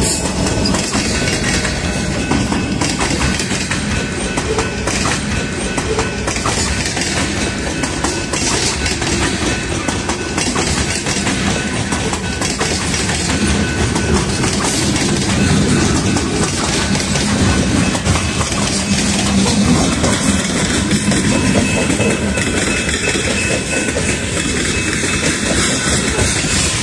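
Freight train passing close by: its railcars rolling over the rails with a steady rumble and clickety-clack of wheels over rail joints.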